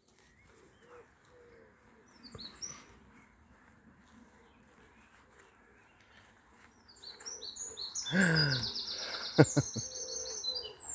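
Outdoor birdsong: a songbird gives a few faint high chirps, then sings more loudly near the end with a fast trill of repeated high notes. About eight seconds in there is a brief low falling voice-like sound, followed by a couple of sharp clicks.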